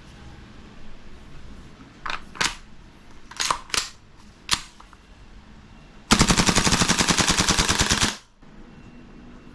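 A few sharp metallic clacks of the King Arms BlackRain 9mm gas-blowback airsoft carbine being handled, then a fully automatic burst of about two seconds, a rapid even rattle of the gas blowback cycling that stops abruptly.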